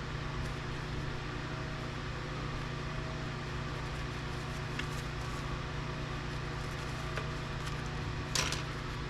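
Steady low mechanical hum, like a running fan or appliance, with a few faint clicks and a brief clatter about eight seconds in.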